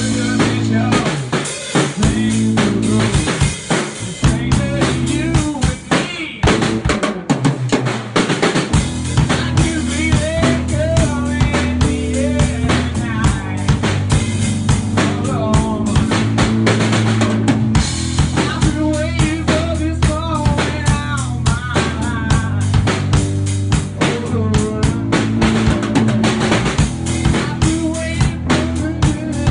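Drum kit played in a steady groove, with kick drum, snare and cymbals, jamming with a bass guitar holding low, sustained notes.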